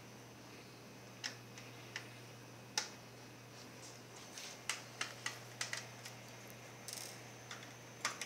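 Irregular small clicks and taps from handling the Acer Aspire One netbook's parts during disassembly, about a dozen in all, bunched together about five seconds in, over a faint steady hum.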